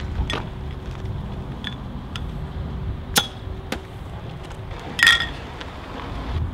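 Sharp clicks and clinks of glass beer bottles being handled and their metal caps prised off. About five seconds in, a louder metallic clink with a short ring, as of a bottle cap dropping onto pavement.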